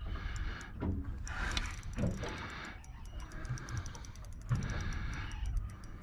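Spinning reel clicking rhythmically, about six clicks a second from about two seconds in, under load from a hooked salmon on a bent rod.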